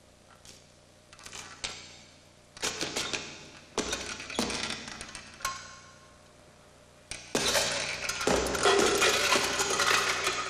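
Sound-effects track of a stop-motion film: scattered clicks and knocks that grow into clattering bursts, then a dense rattling clatter with a steady low hum over the last few seconds.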